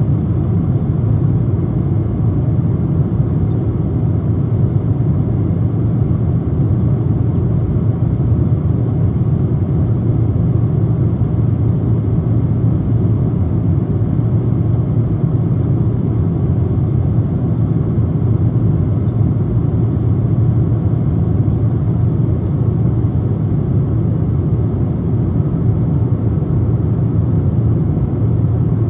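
Steady low rumble of a Boeing 777-200 in flight, its engine and airflow noise heard inside the cabin beside the wing.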